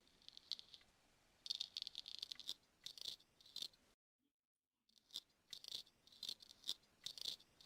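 Close-up crackly scratching and clicking of a razor scraping ear hair, an added sound effect for ear-hair shaving. It comes in two runs of quick strokes, broken by about a second of dead silence a little past the middle.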